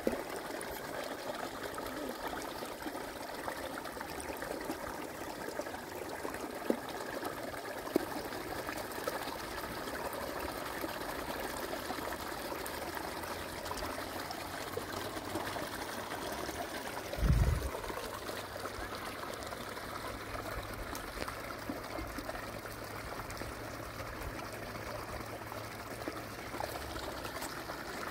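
Water trickling and running steadily. A dull low thump about halfway through, and a couple of faint clicks before it.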